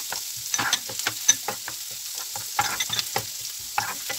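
Minced garlic sizzling in hot olive oil in a nonstick frying pan while a spatula stirs it, scraping and tapping the pan bottom over and over.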